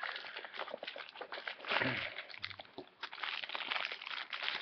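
Crinkling and rustling of packaging being handled: a small cardboard box is opened and a plastic-wrapped corkscrew is taken out, with many small irregular crackles.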